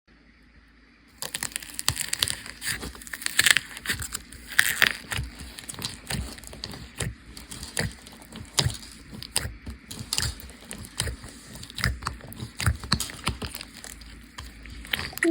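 Bean bag slime, a slime packed with small foam beads, being squeezed and pressed by hand. About a second in it starts making dense, irregular crunchy crackles and pops.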